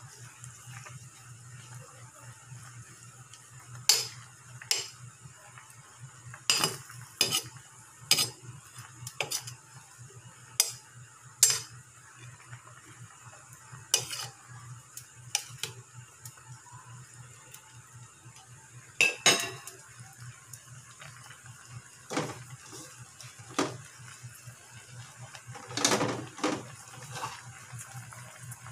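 A metal ladle clinking and knocking irregularly against the side of an aluminium cooking pot while leafy greens are stirred into simmering broth, over a steady low hum.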